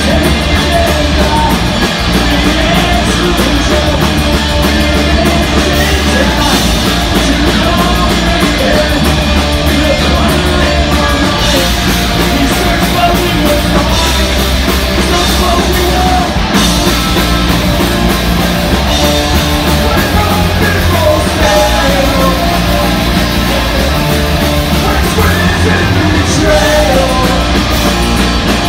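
Live rock band playing loud: distorted electric guitars, bass guitar and drums, with a singer's vocals over them.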